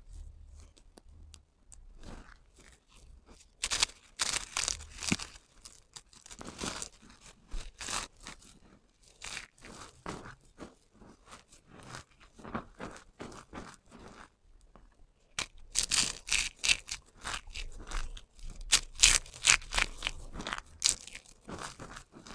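Crunchy soap cubes and strips crunching and crackling as bare hands squeeze and crumble them in a heap of soap crumbs. The crackles come densely and irregularly, with louder bursts about four seconds in and a long loud spell in the last third after a brief lull.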